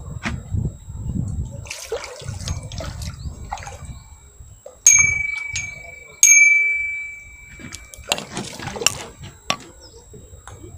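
A hooked crucian carp splashing and thrashing at the water's surface. A little after the middle, two bright bell-like dings come about a second and a half apart, each ringing and fading away, and they are the loudest sounds.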